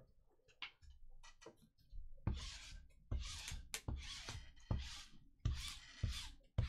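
Trading cards being slid against one another and set down on a table while they are sorted. It is a run of short rubbing swishes, each starting with a click, about one every second, beginning about two seconds in.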